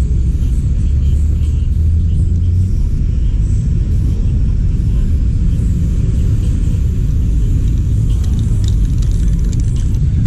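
Steady low rumble, a little stronger in the first few seconds.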